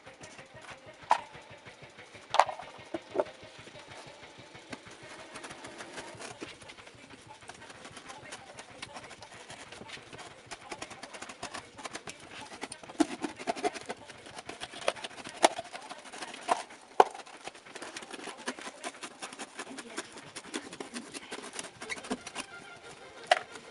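Hands fitting a fan to a cardboard box: scattered sharp clicks and knocks over a continuous crackly rustle.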